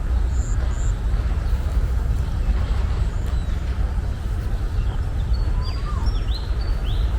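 Birds chirping over a steady low rumble. Two short high chirps come about half a second in, and a run of quick, sweeping whistled chirps comes in the last two seconds.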